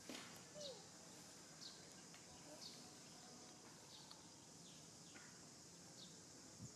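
Faint natural outdoor ambience: a steady high insect drone, with a bird giving short falling chirps about once a second and a slightly louder falling call right at the start.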